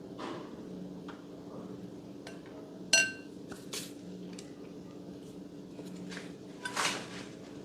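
A few light clinks of a utensil or container against a hard dish, the loudest a sharp ringing clink about three seconds in, with a short noisy handling sound near the end, over a steady low hum.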